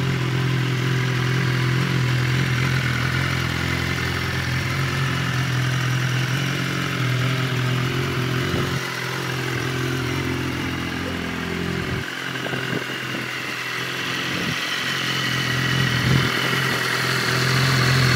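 BMW S1000RR's inline-four engine idling steadily, holding an even note throughout.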